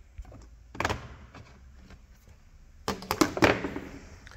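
Plastic clicks and knocks as a laptop's bottom case is pried open and its snap clips release: a short group of clicks about a second in, then a quick run of sharper snaps and knocks around three seconds in.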